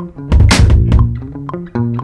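Instrumental beat music: plucked bass and guitar notes over a regular ticking rhythm, with one loud drum-and-cymbal hit about a third of a second in.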